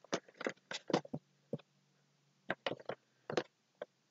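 A Funko Pop's cardboard box with a clear plastic window is handled and turned in the hands, giving short clicks and crinkles. They come in two quick runs with a pause of about a second between.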